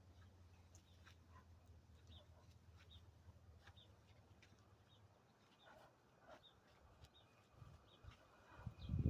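Faint, repeated short chirps of small birds, with a low steady hum in the first half. About a second before the end a louder low rumble starts.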